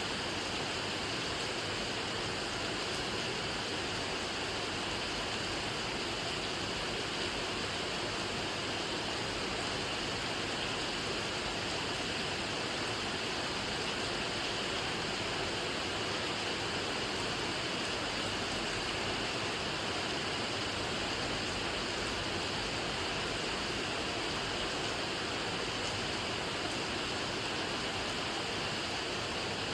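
Rain falling steadily: an even, unbroken hiss that holds the same level throughout.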